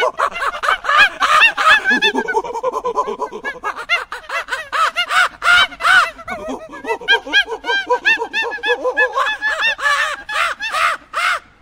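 Golden snub-nosed monkeys chattering: a dense run of short, high calls that each rise and fall in pitch, several a second and overlapping, cutting off abruptly near the end.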